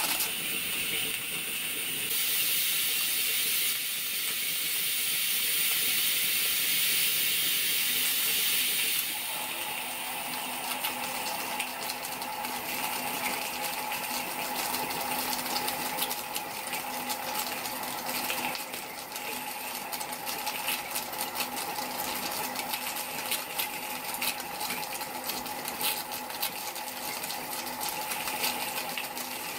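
Miniature live-steam locomotive's injector being tried: steam hisses strongly for several seconds and cuts off suddenly about nine seconds in. Quick, irregular metallic ticking follows over a faint steady hum.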